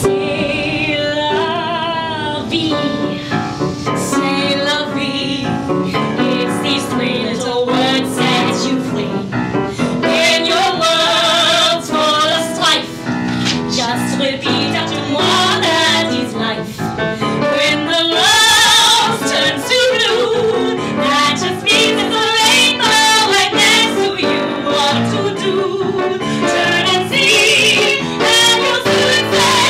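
Women singing a show tune with a wavering vibrato, accompanied by a grand piano.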